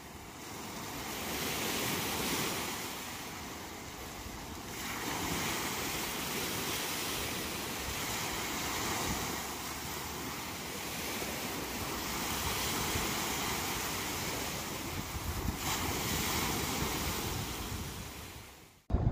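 Waves breaking and washing up a sandy beach, swelling and ebbing every few seconds. The sound fades in over the first two seconds and fades out near the end.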